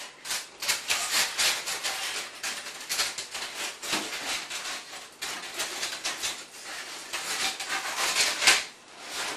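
Expanded polystyrene foam rubbing and scraping against itself as a hot-wire-cut canopy piece is worked free of its offcut block. It is a continuous run of dense, scratchy rubs, with a sharper scrape near the end.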